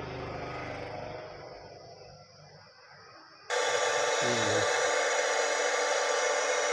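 The repaired car stereo's speaker starts a loud, steady static hiss suddenly about three and a half seconds in. This is the sign that the unit's audio output is working again after its faulty module was replaced.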